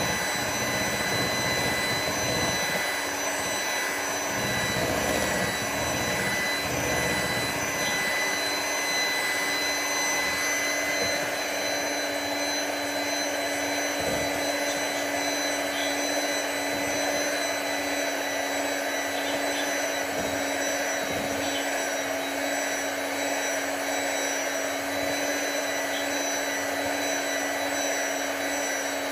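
Electric hand mixer running steadily at speed, its beaters whipping double cream in a glass bowl, with a constant motor whine.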